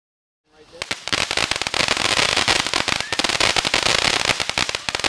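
Firecrackers going off in a rapid, dense run of sharp pops, starting suddenly about half a second in.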